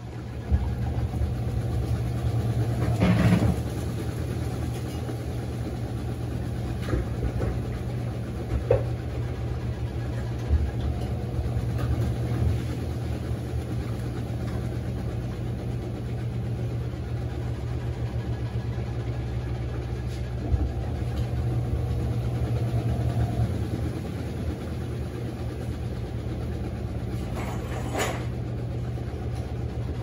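Panasonic NA-F140B6 top-loading washing machine in its spin cycle: the motor drives the basket, freed by its ratchet clutch, with a steady low hum and a few brief knocks.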